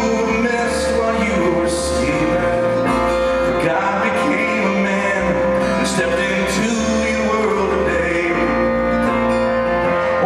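Live acoustic band music: acoustic guitars, violin and keyboard piano playing a slow song, with a man singing.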